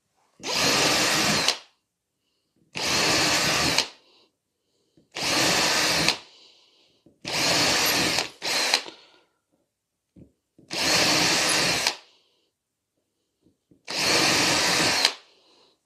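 Cordless drill with a thin bit running in six short bursts of about a second each, with a brief extra burst just after the fourth, drilling small holes into a model railway baseboard.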